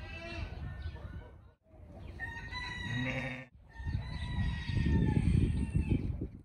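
Drawn-out farmyard animal calls in three short clips cut abruptly together, over a low rumble that is loudest in the last clip.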